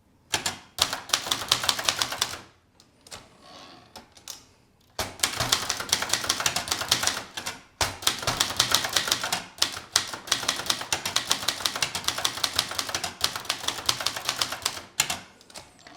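Brother Deluxe 220 manual typewriter being typed on, a fast run of sharp key strikes. The typing stops for a couple of seconds near the start, then runs on steadily with only a brief break.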